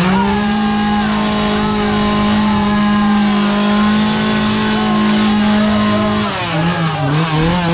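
Two-stroke chainsaw revved to full throttle and held there, a steady high engine note, then throttled up and down in quick blips about six seconds in.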